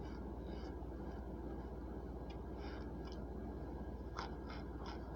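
Someone chewing and crunching chunks of microwaved Argo cornstarch, faint scattered crackles with a few sharper crunches about four seconds in.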